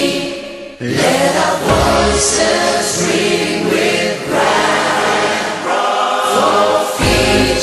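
A choir singing, heard as background music, in sung phrases with short breaks between them.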